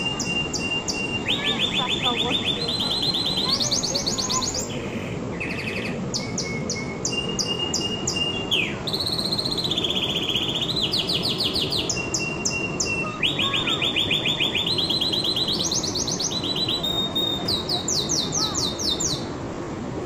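Canary singing a long, continuous song of rapid trills: each trill is a fast run of repeated notes held at one pitch, then jumps higher or lower every second or so, with a few short steady whistles between. A steady low background noise runs under the song.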